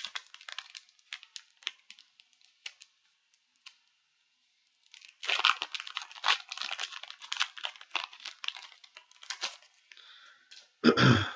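Foil booster pack wrapper crinkling and being torn open: light rustles at first, then dense crinkling from about five seconds in. A short, loud knock near the end.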